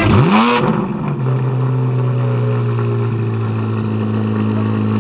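Chevrolet C8 Corvette Z06's V8 blipped once, its revs rising and falling back within about half a second, then settling into a steady idle.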